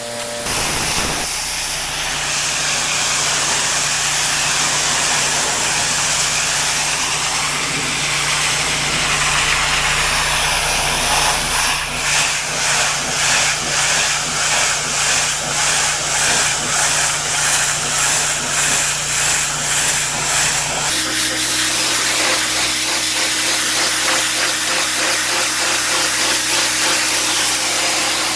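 Pressure washer jetting water onto patio paving: a loud, steady spray hiss over the machine's steady hum. For several seconds in the middle the spray pulses about twice a second, and about two-thirds of the way through the hum shifts to a different pitch.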